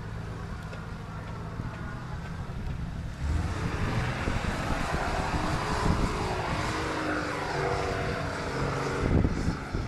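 Four-wheel-drive vehicle's engine working up a steep dirt track. About three seconds in it gets suddenly louder and revs harder under load, its pitch shifting as it climbs.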